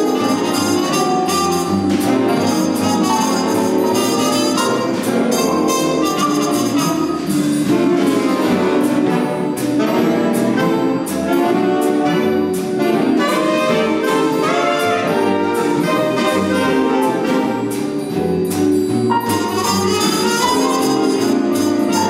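Big band playing a bright swing tune: trumpets, one of them muted, saxophones and trombones over the rhythm section, with the drummer's cymbals keeping a steady swing beat.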